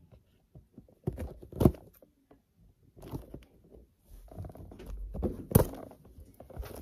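Scissors cutting through the side of a cardboard toy box, with scattered snips, crinkles and handling scrapes of the packaging. Two sharp clicks stand out, about four seconds apart.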